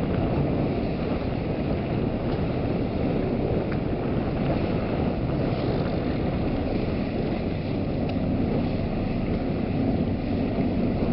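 Wind rumbling steadily on the microphone, with the faint hum of a fast motorboat's engine as the grey military boat speeds across the harbour.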